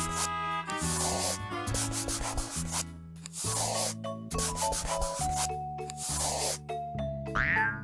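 Light background music with a scratchy, rubbing scribble sound effect that recurs about every two and a half seconds, and a short sliding sound effect near the end.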